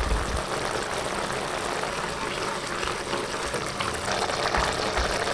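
Tamarind water boiling briskly in an open aluminium pressure cooker, a steady bubbling and crackling.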